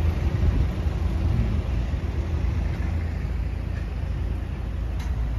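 City road traffic: cars and vans driving past, a steady low rumble of engines and tyres.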